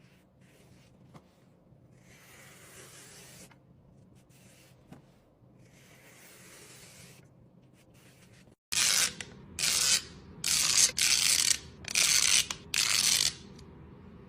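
Faint soft swishing, then about nine seconds in six loud scraping strokes, each about half a second long.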